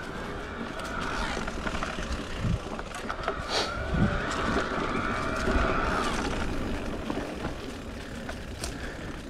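Electric mountain bike ridden along a dirt trail: a constant rush of tyre, drivetrain and wind noise, with knocks and rattles over bumps. A whine swells for a few seconds in the middle and then fades.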